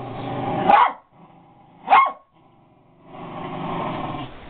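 Small dog growling and barking: a growl that builds into a sharp bark just under a second in, another short bark about two seconds in, then a second long growl near the end.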